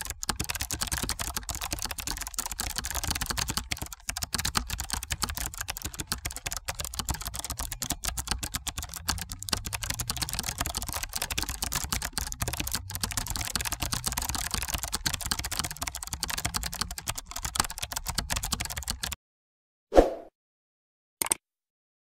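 Rapid, continuous computer keyboard typing that stops abruptly about nineteen seconds in, followed by a single low thud and a short click.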